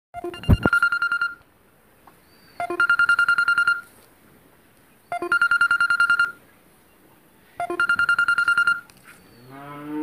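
Electronic telephone ringtone: four rings about two and a half seconds apart, each about a second of a rapidly pulsing high tone. Near the end a low drawn-out call begins.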